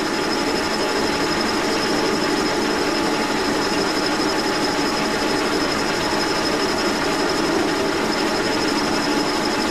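Brown & Sharpe No. 2 horizontal milling machine running, its arbor-mounted cutter milling a hard cast crank lever clamped in a vise. It makes a steady mechanical drone with a thin, steady high whine over it.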